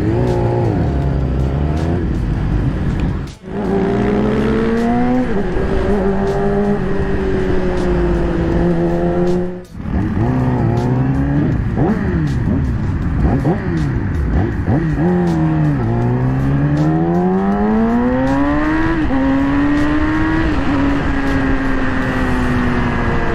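2020 Yamaha R6's 599 cc inline-four with an Akrapovic full exhaust, heard from the rider's seat, accelerating through the gears: the engine note climbs, drops at each upshift and climbs again. A long rising pull near the end eases off into a steadier note. The sound cuts out briefly twice.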